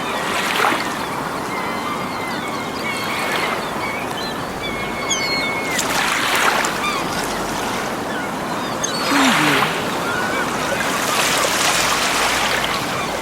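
Small waves washing onto a beach in a steady hiss that swells several times, with seagulls calling over it.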